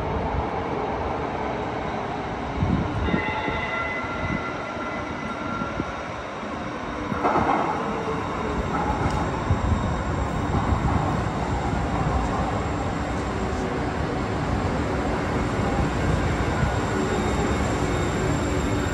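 TriMet MAX Siemens SD660 light rail train rumbling in through the tunnel and drawing alongside the underground platform. Brief high wheel squeals come a few seconds in, and the rumble grows louder as the train nears.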